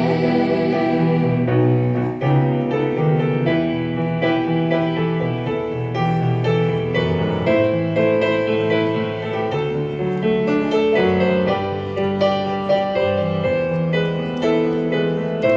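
Piano playing an instrumental interlude of the hymn melody, a slow, steady run of held notes and chords with no singing over it.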